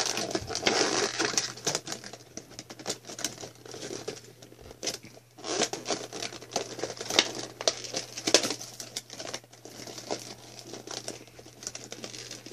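Stiff clear plastic toy packaging crinkling and crackling in irregular bursts as it is handled and a toy is worked out of it.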